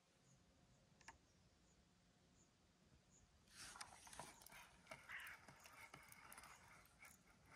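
Near silence: faint ambience with a soft click about a second in, and a faint crackly rustling from about halfway.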